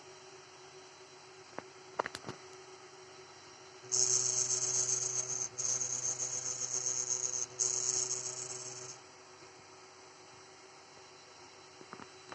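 Creality Ender 3 Pro 3D printer making an odd noise: a loud high-pitched buzz starts about four seconds in, lasts about five seconds with two brief breaks, then stops, over the printer's steady fan hum. A few light clicks come before it.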